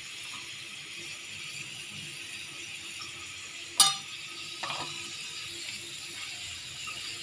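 Potato slices frying in oil in a pan, a faint steady sizzle, with one sharp clink of a steel spoon against the pan about four seconds in as stirring begins.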